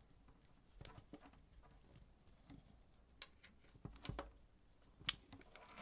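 Faint, scattered clicks and light taps of small parts and a cable being handled during assembly.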